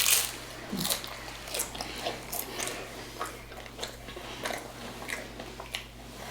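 A person chewing crunchy food close to the microphone, with a string of irregular crisp crunches.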